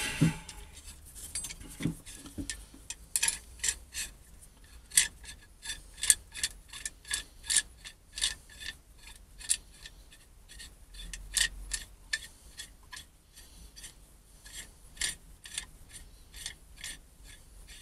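Large metal bar clamp being adjusted by hand: a long run of sharp metallic clicks, about two or three a second, as the sliding jaw is worked along its toothed bar. The clicks thin out in the second half.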